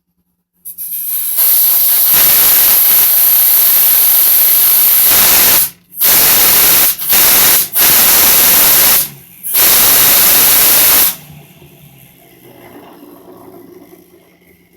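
Compressed air from an air-compressor hose blasting at a fidget spinner to spin it up: a loud, steady hiss given in several blasts with short breaks between them, which stops about eleven seconds in. A much fainter steady whir follows.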